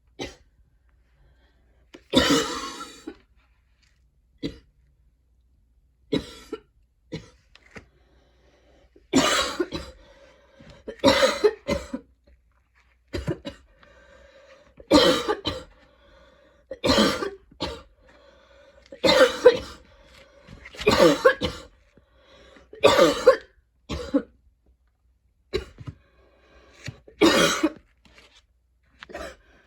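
A woman coughing in a long fit: harsh coughs come singly or in pairs every second or two without letting up, a painful, choky coughing attack.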